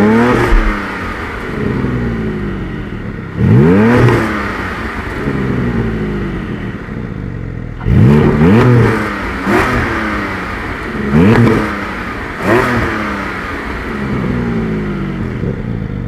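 Porsche 718 Cayman GT4's naturally aspirated 4.0-litre flat-six, stationary, blipped about seven times with its sport exhaust valves open (exhaust button pressed). Each blip is a quick rise in revs that falls back to a steady idle, most of them coming in the second half.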